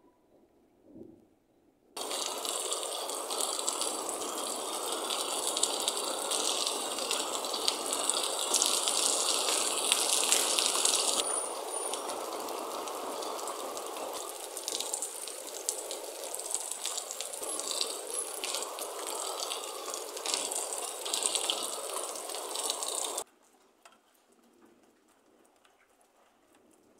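Heavy rain pouring down, a steady rushing hiss that starts abruptly about two seconds in, is loudest for a spell before the middle, and cuts off abruptly a few seconds before the end.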